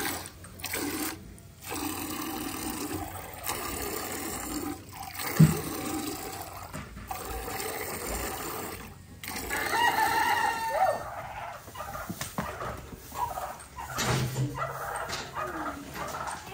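Milk squirting from a cow's teats into a stainless steel pail during hand-milking. A brief loud thump comes about five seconds in, and a rooster crows about ten seconds in.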